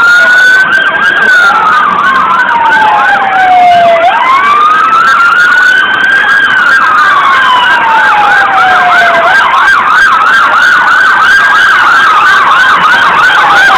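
Two emergency-vehicle sirens sounding together, loud. One is a slow wail rising and falling about every five seconds; the other is a fast yelp of several sweeps a second.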